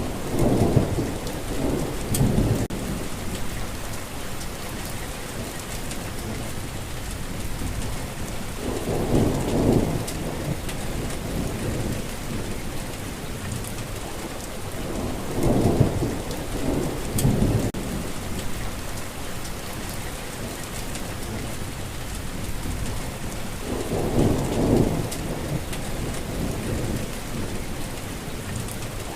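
Steady rainfall with low thunder rumbling in four rolls: near the start, about nine seconds in, around sixteen seconds, and again near the end.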